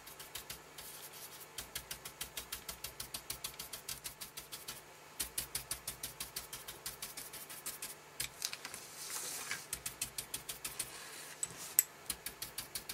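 Round ink-duster brush dabbing and buffing ink onto card stock: quick, even brushing taps, about four or five a second, with a short stretch of steadier swishing about nine seconds in.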